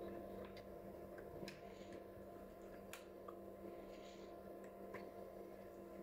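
Faint steady electrical hum with a few soft, scattered clicks.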